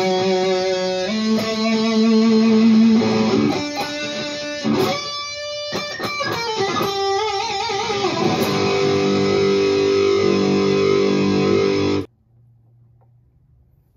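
Electric guitar played through a Valeton GP-200JR multi-effects processor on a high-gain metal preset: sustained notes, then a lead line with bends and vibrato. It cuts off suddenly near the end, leaving only a faint low hum.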